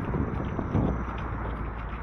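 Running footsteps in a steady beat, with wind rumbling on a small handheld camera's built-in microphone; one heavier thump just under a second in.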